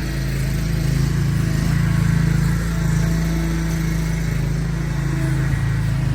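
Gas-powered commercial leaf blower engine running steadily at high throttle, with the rush of air from the blower.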